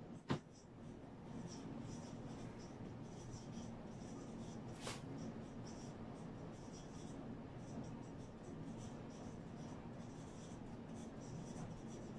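A marker writing on a whiteboard: faint, scratchy strokes over a low room hum. There is a sharp click just after the start and a softer one about five seconds in.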